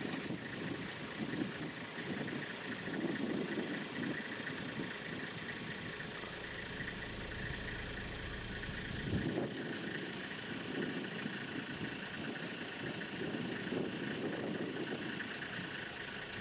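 Safari vehicle engine idling steadily, with an uneven low rumble.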